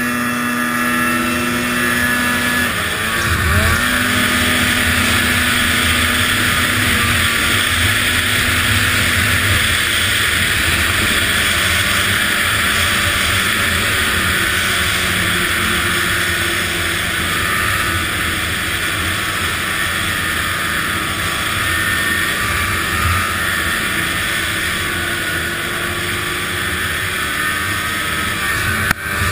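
An Arctic Cat ZR800 snowmobile's two-stroke twin engine runs at speed, climbing in revs at the start and then holding a steady high drone over a constant hiss of wind and track. The revs dip briefly about three seconds in and settle a little lower after about ten seconds.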